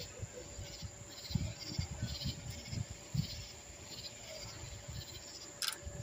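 Night insects calling in short, high-pitched pulses about twice a second, over an irregular low rumble, with one sharp click near the end.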